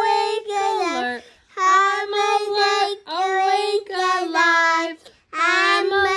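A young child singing a children's song with a woman singing along, in four held-note phrases with short breaths between them.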